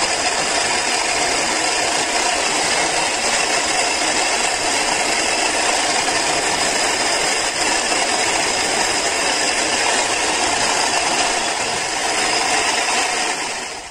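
Bench-mounted electric motor with a small buffing wheel running steadily while airbrush parts are pressed against the wheel for polishing. The noise fades out sharply at the very end.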